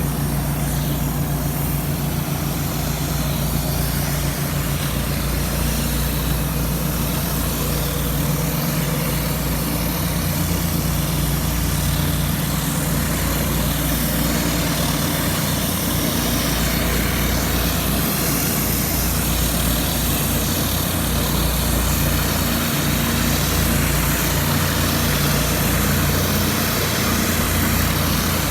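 Pressure washer's engine running steadily at a constant speed, with a continuous high hiss over the engine note.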